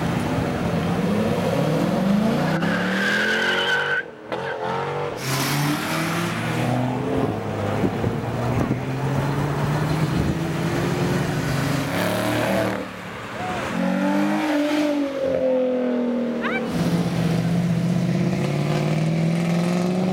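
Cars pulling out one at a time and accelerating, engines revving with pitch rising and falling as they go up through the gears: a C6 Corvette's V8 first, then a classic Mustang convertible and a first-generation Camaro. The sound cuts off abruptly twice between cars.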